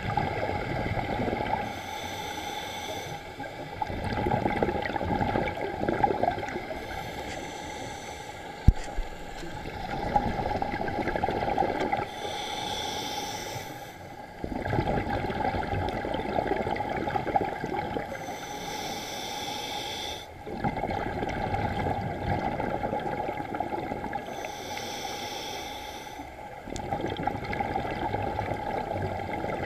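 Scuba diver breathing underwater through a regulator: a hiss on each inhale and a rush of exhaust bubbles on each exhale, in a slow, regular cycle about every six seconds. One sharp tap about nine seconds in.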